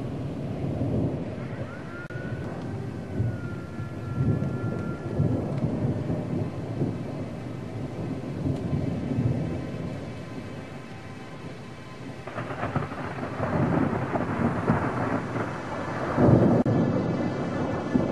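Thunderstorm: repeated rolling thunder rumbling over rain, swelling and fading several times. Two sharper, crackling peals come about twelve and sixteen seconds in, the second the loudest.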